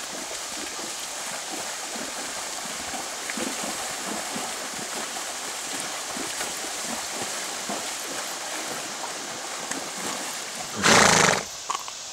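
Steady splashing and rushing water as a horse and a dog wade through a shallow river, with many small splashes from their legs. Near the end comes one loud burst of noise lasting under a second.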